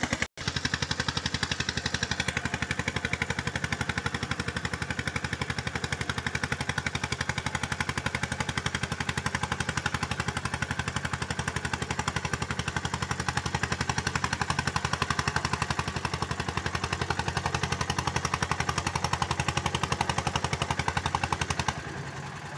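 Eicher 241 tractor's single-cylinder diesel engine working hard with a rapid, even chugging as it hauls a trailer through wet mud. Near the end it eases back and gets quieter.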